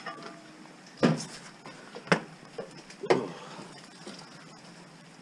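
Three sharp knocks about a second apart, with a fainter one between the second and third.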